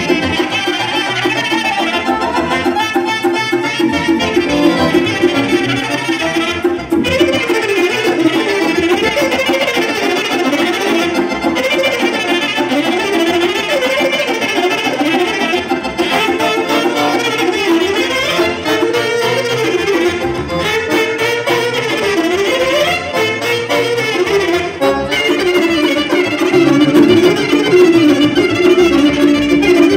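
Live band music led by violin and clarinet over accordion and keyboard accompaniment, playing continuously and getting a little louder near the end.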